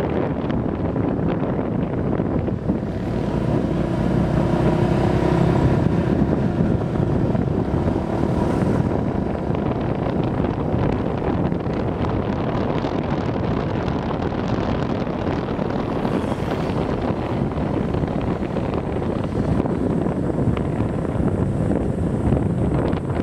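Motorbike riding along with its engine running, heard under heavy, steady wind buffeting on the microphone.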